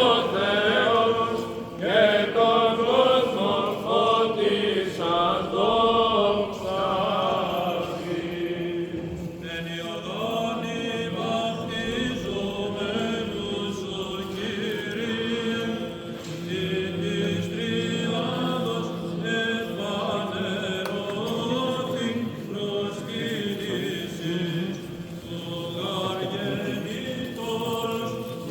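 Greek Orthodox Byzantine chant: voices singing a slow, winding liturgical melody without instruments.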